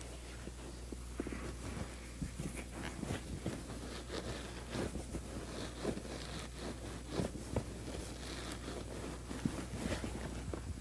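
Black leather upholstery cover being handled: irregular rustling and short scuffs of leather against leather and fabric as it is smoothed, pinned and lifted, over a steady low hum.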